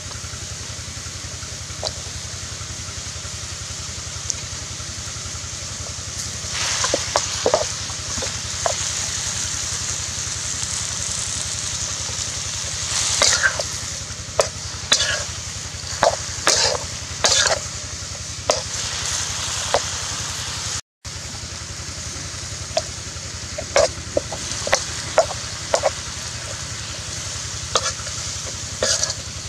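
Pineapple, red pepper and onion sizzling steadily in a hot metal wok, stirred with a steel spatula. The spatula scrapes and knocks against the pan in runs of quick strokes, starting about a fifth of the way in.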